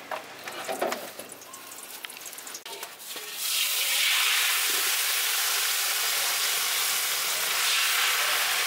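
A few light clicks and knocks. Then, about three seconds in, yellow crepe batter ladled into a hot wok starts sizzling suddenly and loudly, and keeps up a steady frying hiss.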